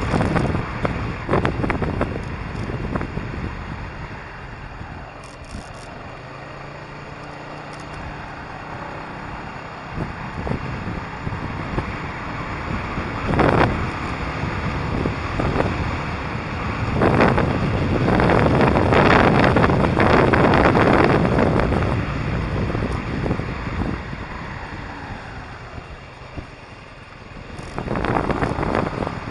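Wind buffeting a motorcycle-mounted camera's microphone, over the motorcycle's engine and road noise while riding. It is quieter for a few seconds early on, then grows loudest past the middle and eases off again near the end.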